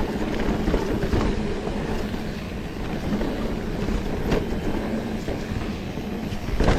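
Specialized Turbo Levo electric mountain bike being ridden along a trail: tyres rolling and the drivetrain rattling under a faint steady hum from the pedal-assist motor, with wind on the microphone and a couple of sharp knocks from bumps.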